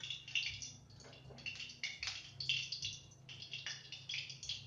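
Grated carrots going into hot ghee in a kadhai, crackling and sizzling in quick, irregular bursts.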